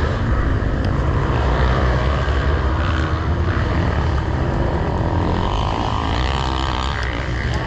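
Yamaha YZ250F dirt bike's single-cylinder four-stroke engine running steadily at low speed, picked up by a camera mounted on the rider, as a deep, even rumble.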